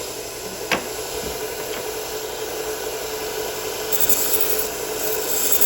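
A 1x30 belt sander runs with a fine Trizact abrasive belt, humming steadily while a knife edge is drawn lightly across it in alternating passes. There is a sharp click about three-quarters of a second in, and a grinding hiss rises twice in the second half as the blade meets the belt.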